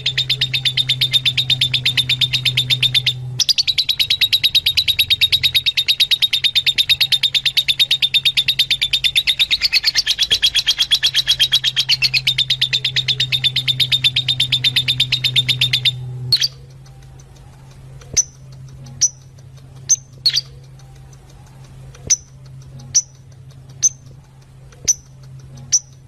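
Fischer's lovebirds chattering in a fast, unbroken stream of chirps, which stops about 16 seconds in and gives way to single sharp chirps roughly once a second. A steady low hum runs under the chatter.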